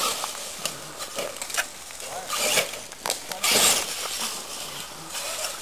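Radio-controlled monster truck driving on a dirt track: its motor whines up and down in pitch amid the hiss of tyres on loose dirt. The loudest burst comes about three and a half seconds in.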